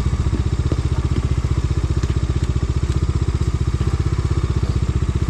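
Bajaj Dominar's single-cylinder engine running steadily at low, idle-like revs with an even, rapid pulse, as the bike is eased very slowly over black ice.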